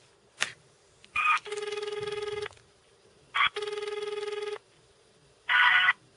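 Telephone ringback tone heard through a mobile phone's speaker: two one-second rings about two seconds apart, each preceded by a short loud burst, with a third burst near the end and a click about half a second in. It is the line ringing while the call waits to be put through to technical support.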